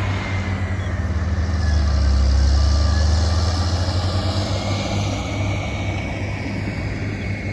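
Diesel engine of heavy earthmoving equipment running, swelling louder about two seconds in and then easing back.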